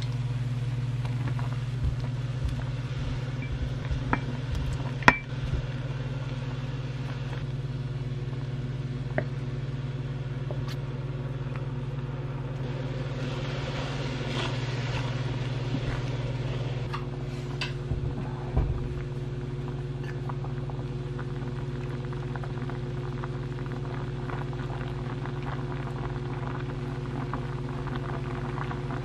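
Soy-sauce braising liquid for quail-egg jangjorim boiling in a pot, bubbling over a steady low hum. Several sharp knocks of a utensil against the pot, the loudest about five seconds in, and a spatula stirring the quail eggs midway through.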